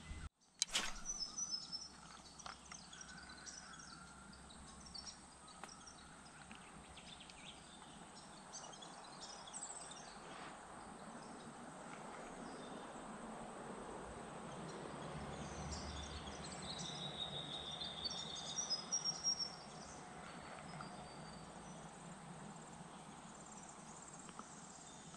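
Bush ambience: scattered high bird chirps and calls over a faint steady background. A run of quick repeated notes comes about two-thirds of the way through.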